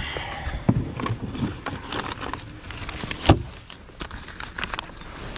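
Paper envelope rustling and crinkling as it is handled, with scattered taps and knocks, the sharpest a little over three seconds in.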